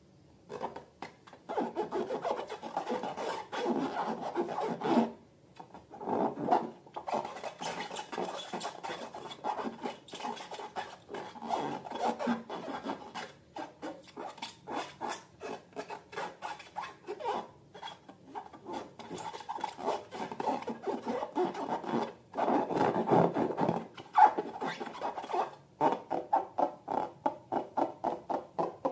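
Hands rubbing, squeezing and working rubber balloons and slime, making irregular rasping, rubbing strokes crowded with small sticky clicks, with brief pauses between bouts.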